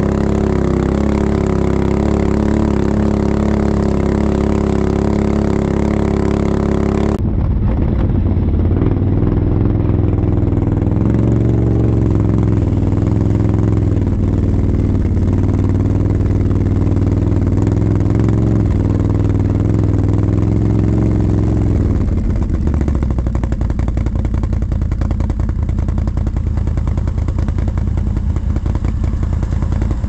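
ATV engines running under way. The engine note is steady at first, then changes abruptly about seven seconds in to a lower, uneven running. It shifts again around twenty-two seconds.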